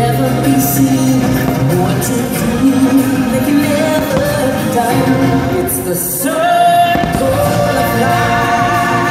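Fireworks show soundtrack playing loudly: music with singing. A note glides up about six seconds in and is held, and a voice holds a wavering note near the end.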